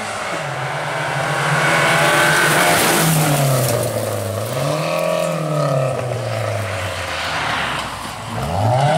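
Rally car engine revving hard as the car drives past. The pitch drops and climbs several times through gear changes and lifts, then rises sharply again near the end.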